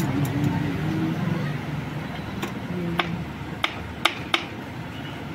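Sharp metallic clicks and taps from motorcycle engine parts being handled and fitted during assembly, about five in the second half, over a steady low hum.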